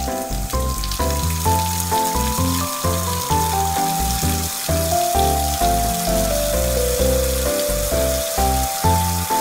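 Background music: a simple melody of held notes stepping up and down over a bass line, with a steady hiss underneath.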